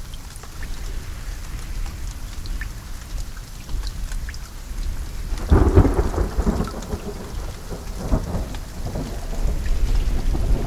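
Steady rain falling, with scattered drops ticking, under a low rumble. About halfway through, a louder peal of thunder breaks and rolls on in waves for a few seconds.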